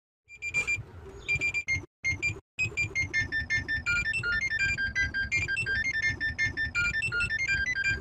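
Mock emergency-alert-system alarm, edited for a 'red zone' effect: rapid electronic beeps hopping between several high pitches over a pulsing low rumble. It cuts out briefly twice near two seconds in, then runs on unbroken.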